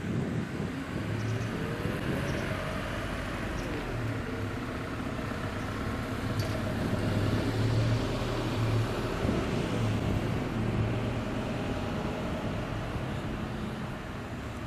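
Diesel railcar engine running, a steady low hum with a pitch that glides up early on.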